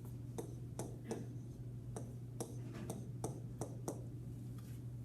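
Calculator keys being pressed: a run of sharp clicks, about two or three a second at uneven spacing, as a division is keyed in. A steady low electrical hum lies underneath.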